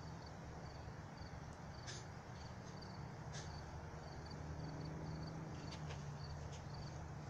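A cricket chirping steadily, short high chirps repeating about twice a second, over a faint steady low hum, with a few sharp clicks.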